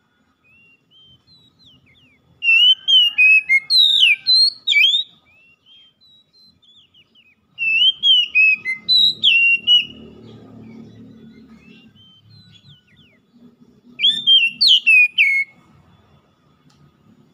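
Oriental magpie-robin (kacer) singing: three bouts of loud whistled phrases, a few seconds apart, with quick rising and falling notes and softer notes between.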